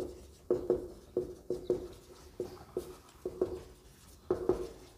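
Marker pen writing on a whiteboard: a run of short squeaks, a few strokes each second at an uneven pace, as letters are drawn.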